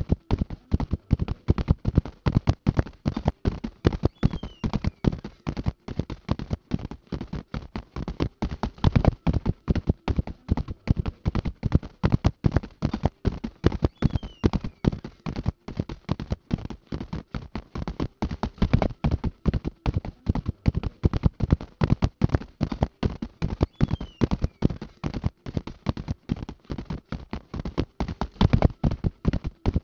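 A horse galloping, its hooves striking the ground in a fast, steady, unbroken rhythm of hoofbeats.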